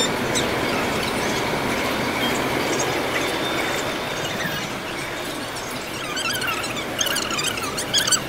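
Steady background noise of a station escalator and concourse, with a run of high, wavering squeaks in the last couple of seconds.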